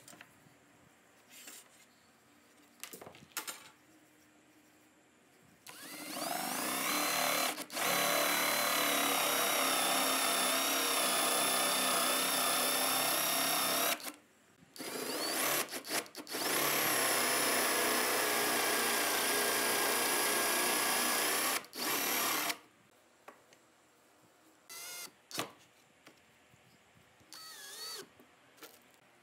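Cordless drill boring a round hinge cup hole in a wooden cabinet door with a Forstner bit. The motor winds up and runs loud and steady for about eight seconds, stops briefly, then runs for another six or seven seconds. Near the end the drill gives a short whir as it drives a hinge screw.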